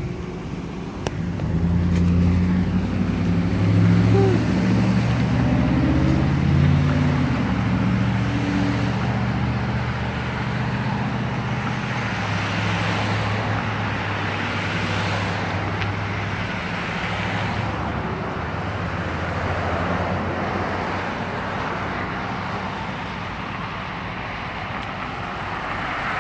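Road traffic passing close by: a low engine drone for the first several seconds, then cars going by one after another with rushing tyre noise that swells and fades.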